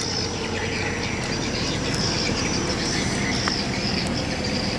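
Steady low rumble of traffic with a faint steady hum, and a continuous high insect chirring over it.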